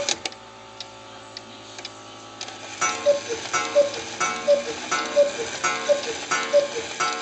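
1865 Gebrüder Kuner Black Forest cuckoo clock ticking, then about three seconds in the cuckoo starts calling: six two-note cuckoos, high then lower, repeating about every 0.7 seconds as the clock strikes.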